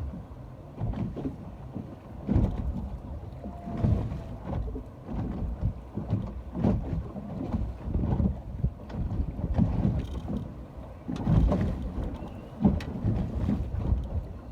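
Small sea waves lapping and splashing, with wind buffeting the microphone in irregular low gusts.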